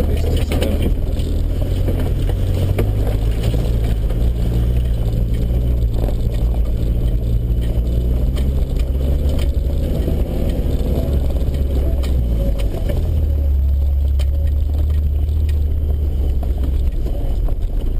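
Land Rover Discovery 1's 300Tdi four-cylinder turbo-diesel running at low revs, heard from inside the cabin as the vehicle crawls over a rough dirt track. Scattered knocks and rattles come from the body and suspension over bumps. The engine drone grows heavier for a few seconds about thirteen seconds in.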